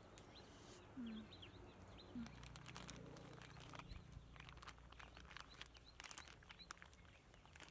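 Near silence: faint outdoor ambience with scattered short bird chirps and a few soft clicks.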